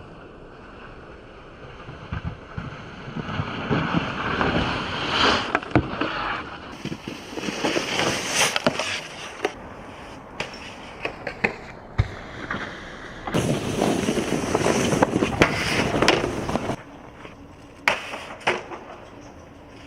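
Snowboards sliding and scraping over snow and hard street features, with a few sharp clacks of board impacts. The sound changes abruptly several times.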